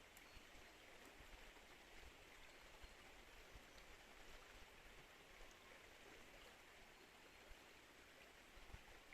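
River water flowing, a faint, steady rush with a few tiny ticks.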